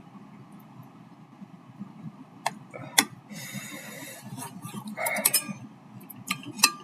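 Light clicks and taps with short scratchy rustles from handling a hard-boiled egg and eating utensils at the bowl. The loudest click comes about three seconds in, followed by about a second of rustling, with another short rustle later and two more taps near the end.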